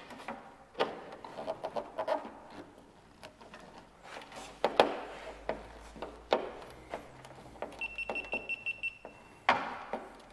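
Small handmade slotted flanging tool levered against the edge of a steel fender's gas-cap opening: irregular light metal clicks and short scrapes as the flange is bent over a little at a time. A high steady beep-like tone sounds for about a second near the end.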